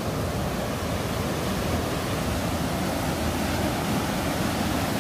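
Swollen brook in full flow, water rushing steadily down a small drop as a constant, unbroken hiss.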